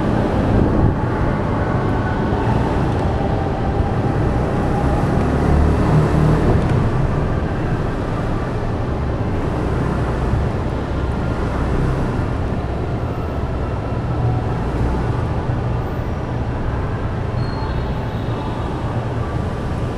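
Steady low rumble of vehicle traffic and running engines.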